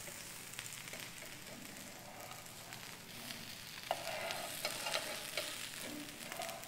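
Rava dosa sizzling faintly on a hot nonstick tawa. A steel spatula scrapes and clicks around the dosa's edge to loosen it, more from about four seconds in.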